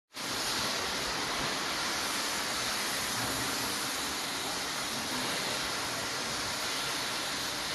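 Steady, unbroken rushing hiss of industrial machinery noise, even in level throughout.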